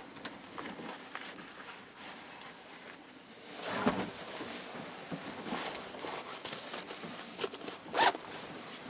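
Clothing rustle and small knocks from a hunter shifting in a fleece jacket and handling a scoped rifle inside a small wooden hide, with a louder stretch of rustling about four seconds in and one sharp knock about a second before the end.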